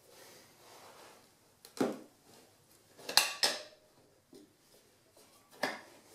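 Tire irons clanking against an aluminum dirt bike rim while a tire is levered back onto the wheel: a few sharp metallic knocks and clinks, about two seconds in, a louder cluster around three seconds in, and one more near the end.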